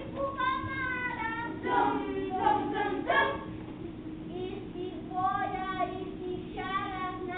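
Children's voices singing together in short melodic phrases with brief pauses between.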